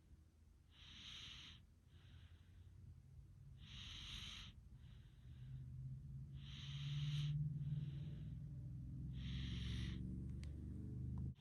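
Snoring: hissy breaths come in a steady rhythm about every three seconds, each followed by a softer breath. A low rumbling snore builds through the second half and cuts off suddenly near the end.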